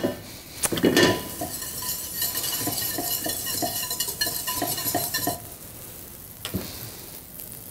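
Butter sizzling as it melts in a hot stainless steel pan over a gas flame, with a utensil knocking and tapping against the pan as the butter is pushed around. There is one louder knock about a second in, and the sizzle dies down sharply about five seconds in.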